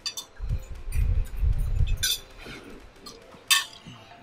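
Tableware clinking on a table: a few sharp clinks of glass and cutlery, the loudest about three and a half seconds in, with a low dull handling noise from about half a second to two seconds in.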